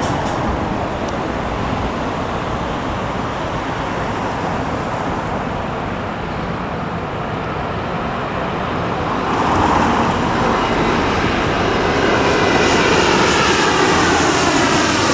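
The four Allison T56 turboprop engines of a C-130H Hercules on low approach make a loud, steady drone. It grows louder from about ten seconds in as the aircraft nears. Near the end a high turbine whine and a sweeping, phasing sound come in.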